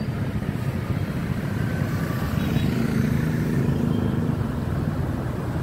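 Motorbike and scooter traffic: a steady mix of small engines running past. One engine comes through closer and louder from about two seconds in.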